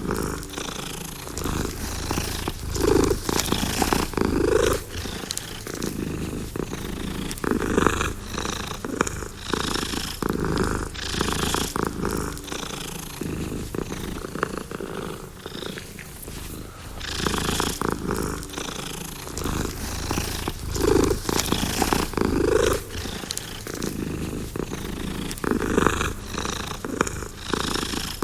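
Domestic cat purring continuously, swelling and easing every few seconds.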